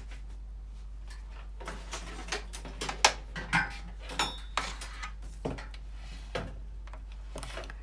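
Irregular clicks, taps and light clatter of a phone and its charger cable being handled and plugged in, over a steady low hum. The sharpest knock comes about three seconds in.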